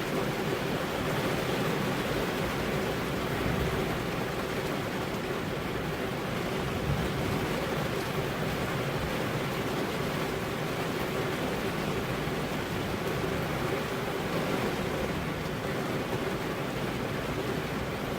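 Steady rain falling on a car's window glass, an even hiss with no breaks.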